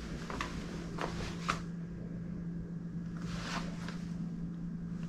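A few soft footsteps and taps over a steady low hum.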